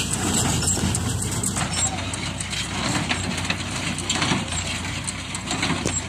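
Tractor engine running steadily while pulling a Jones small square baler at work, with repeated mechanical clattering from the baler as it presses and pushes out rice-straw bales.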